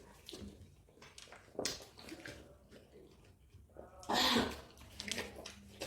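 Watermelon being eaten: scattered wet bites, chewing and slurping of the juicy flesh, with one louder, longer wet noise about four seconds in.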